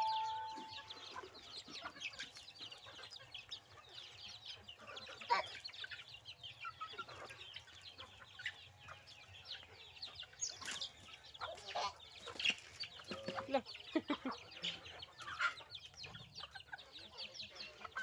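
Free-range chickens, hens and young birds, clucking and peeping around the feed, with many short, high calls throughout and a few louder ones in the middle.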